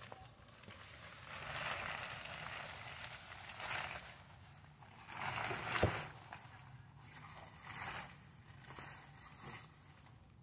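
Fabric car cover rustling and swishing as it is pulled off an SUV and bunched up, in several long bursts, with one sharp click a little past halfway.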